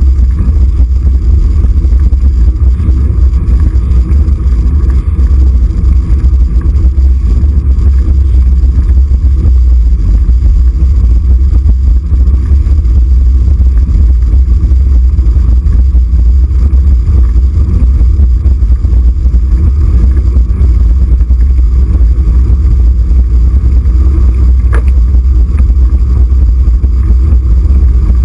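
Wind buffeting the microphone of a camera on a moving bicycle: a loud, steady low rumble, with road noise underneath.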